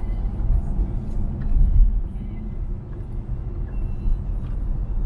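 Car engine and road noise heard from inside the cabin while driving: a steady low rumble that eases slightly around the middle.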